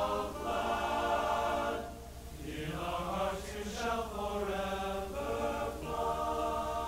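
Background music of a choir singing long held chords, over a steady low hum.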